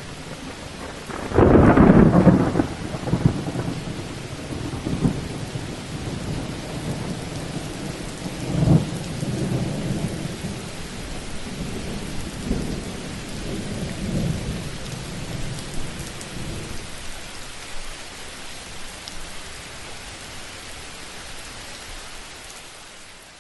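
Thunderstorm with steady rain. A loud thunderclap comes about a second and a half in, and weaker rolls of thunder follow several times before dying away. The sound fades out near the end.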